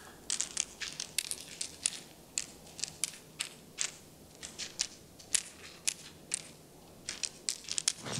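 Small hard pills and tablets being handled on a table, a string of sharp, irregular clicks and crunches, about two to three a second.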